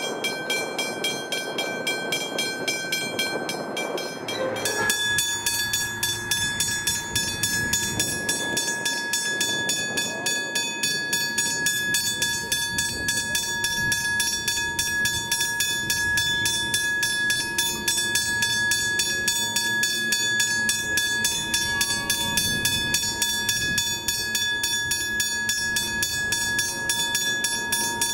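Westinghouse railway level-crossing bell ringing with a rapid, steady run of strikes while the crossing lights flash. About four seconds in it cuts to another crossing's bell of the same kind, ringing at a different pitch.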